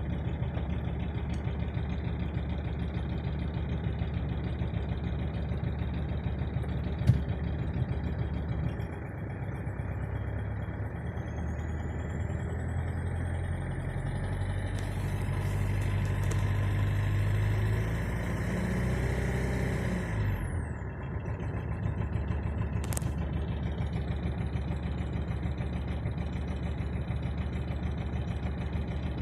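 Mercedes OM646 four-cylinder common-rail diesel idling cold with a knock, which the owner reports goes away at higher revs and comes with a slight rough shake at idle. About a third of the way in the engine speed rises and is held for several seconds, then drops back to idle about two-thirds through; a single sharp click sounds about a quarter of the way in.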